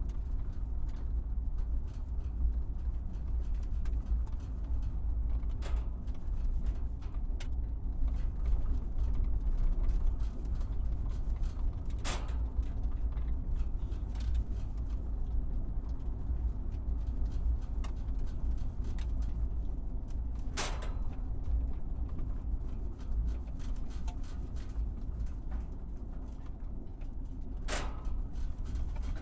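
Truck driving over a bumpy road: a steady low rumble, broken by a handful of sharp knocks and rattles several seconds apart as it goes over bumps.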